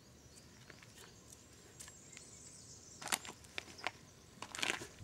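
Shoes crunching and scuffing on loose gravel as a person shifts stance and kicks: a few sharp crunches about three seconds in, then a longer scrape of grit near the end, over a faint outdoor background.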